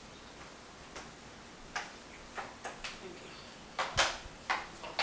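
A person's mouth sounds: short, quiet clicks and smacks, sparse at first and coming more often from about two seconds in, the loudest a little before four seconds.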